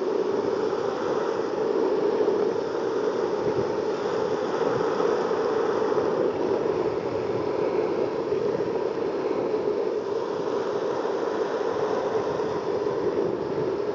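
Longboard wheels rolling fast over asphalt, a steady, unbroken rolling noise.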